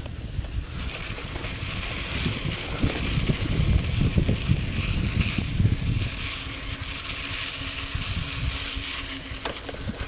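Wind buffeting the microphone of a handheld camera, an uneven low rumble, over a steady high hiss.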